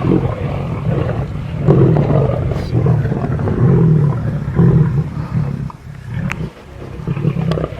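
A large pride of lions feeding at a kill: deep, rough growls from several animals overlapping without a break. The growling eases off for a moment about six seconds in, and a couple of sharp clicks come near the end.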